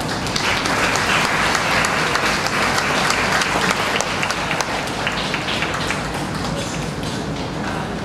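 Audience applauding, a dense crackle of many hands that builds in the first second and tapers off after about five seconds as a team is welcomed onto the floor.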